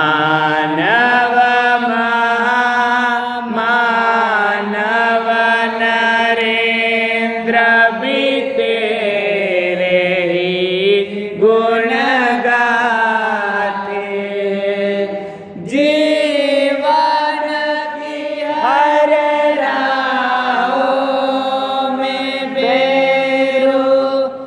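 A devotional Jain stuti sung slowly in Hindi, with long held notes that bend and glide between pitches. The singing breaks briefly about two-thirds of the way through, then carries on.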